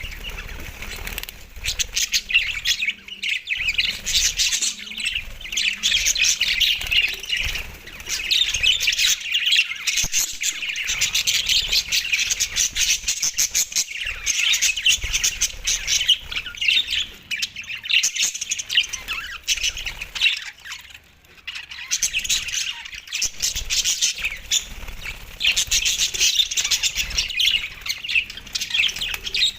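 Pet budgerigars chirping and chattering nonstop, a dense run of rapid high chirps with a brief lull about two-thirds of the way through.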